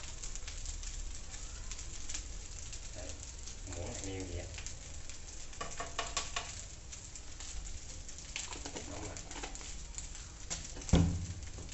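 Rice and egg yolk frying quietly in a pan on a portable gas stove, with a few light clicks around the middle as seasoning is added by hand and a sharp knock near the end.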